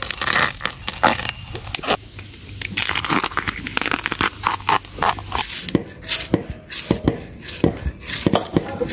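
Crackling and tearing of dry bamboo leaves and bamboo-shoot husks being handled, then a knife shaving strips off a peeled bamboo shoot in a quick run of sharp scraping strokes.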